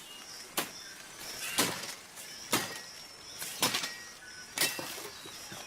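Sharp knocks, one about every second, over faint high-pitched calls of the forest.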